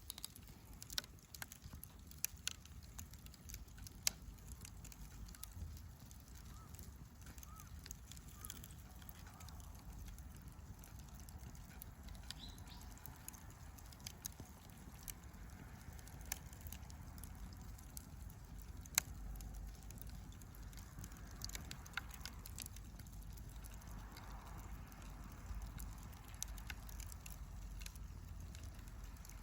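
Wood campfire burning and crackling, with sharp, irregular pops scattered throughout, two louder ones about four and nineteen seconds in.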